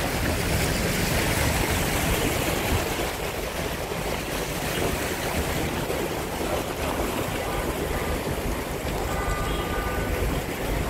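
A vehicle driving through deep floodwater on a street: a steady rush and slosh of water pushed aside by the car, with vehicle noise underneath.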